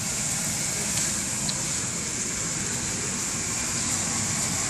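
Shrimp and peppers sizzling in a hot frying pan as they are stir-fried, a steady high hiss.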